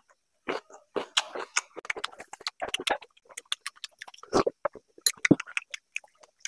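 Close-miked wet chewing and lip-smacking of a person eating water rice and fried fish, a run of short clicks and smacks. A sip of water from a glass comes a little after four seconds in, and a short low knock follows about a second later.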